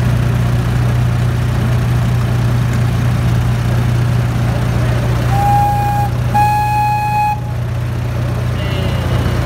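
Ride-on miniature train running with a steady low hum. About halfway through its whistle sounds twice at one steady pitch, a short toot and then a longer one.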